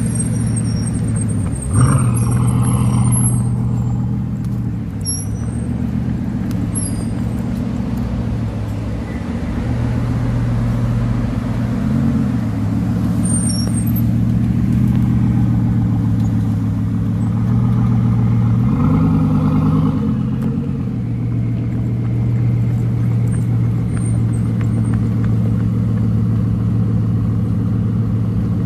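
Bugatti Veyron's quad-turbocharged 8.0-litre W16 engine idling and crawling at low speed with a steady low hum. Its revs rise briefly and fall back three times, about two, twelve and nineteen seconds in.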